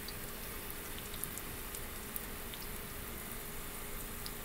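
Fry bread dough frying in shallow canola oil in a cast-iron skillet: a steady sizzle with a few small pops.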